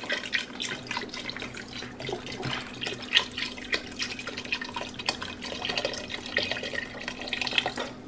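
Beef stock pouring in a steady stream from a carton and splashing into the liquid in a pressure cooker's pot; the pour stops near the end.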